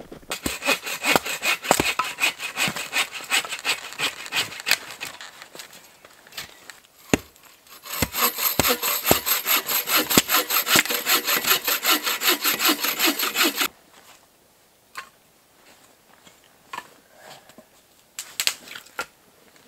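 Hand saw cutting dry dead wood in quick, even back-and-forth strokes: one run of sawing, a short pause, then a second run that stops suddenly. A few sharp knocks or snaps of wood follow near the end.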